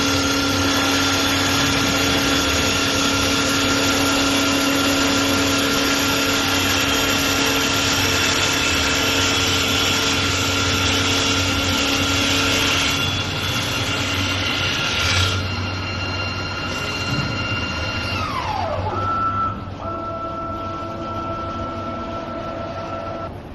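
CNC wood turning lathe running, a steady mechanical din with motor whine over the noise of the tool working the wood. About three quarters of the way in, a whine drops sharply in pitch, leaving a quieter steady hum.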